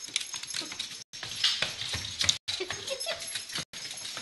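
Pets at play: scrabbling and light knocks, with a few short cries a little past halfway. The sound cuts out for an instant three times.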